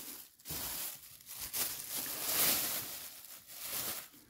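Thin plastic bags crinkling and rustling as hands rummage through a cardboard box, loudest about two seconds in.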